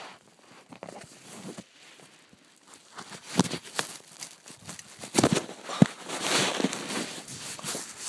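Handling noise from a phone camera carried on a bicycle on a rough dirt trail: clothing rubbing and crinkling against the microphone, with irregular knocks and rattles from the bumps. It grows busier in the second half, loudest between about five and seven seconds in.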